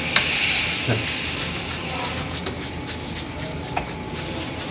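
Gloved hands pressing and spreading minced kebab meat in a round metal baking tray, with a few light clicks and knocks against the tray over a steady hiss.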